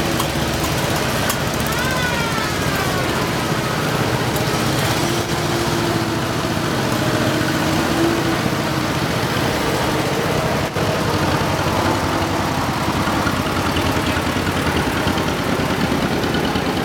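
Several antique farm tractor engines running steadily as the tractors drive past at low speed.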